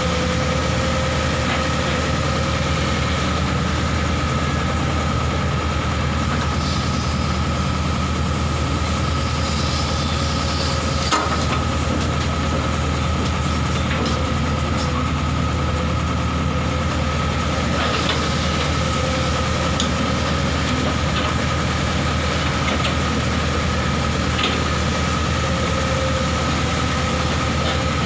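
Excavator's diesel engine running steadily with a steady high whine over it, and a few sharp knocks, the loudest about eleven seconds in.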